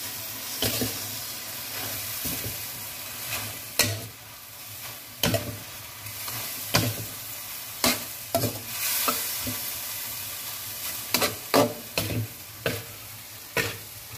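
Metal spatula scraping and clanking against a metal wok while seafood, chicken and greens are stir-fried, over a steady sizzle. The sharp strikes come at irregular intervals, more often in the second half.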